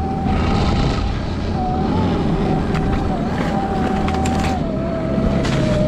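Electric snowbike with a 72-volt battery and a TrackNGo snow track kit riding through deep powder: a steady electric-motor whine that wavers slightly and drops a little in pitch near the end, over the low rumble of the track.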